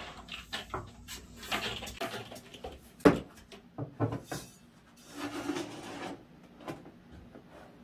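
Cat litter being cleaned out of a plastic litter box: scraping and rubbing with a string of knocks against the box, the loudest a sharp knock about three seconds in, and a longer scrape a couple of seconds later.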